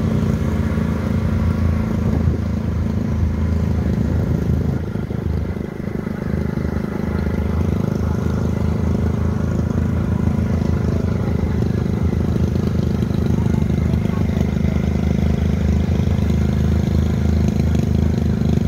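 Small petrol engine running steadily at cruising speed on the move, easing off briefly about five seconds in before picking up again.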